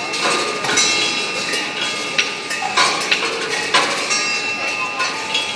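Rolling-ball sculpture running: a ball circling down a steel funnel bowl while balls clatter along the metal tracks, giving irregular metallic clicks and knocks over a steady ringing.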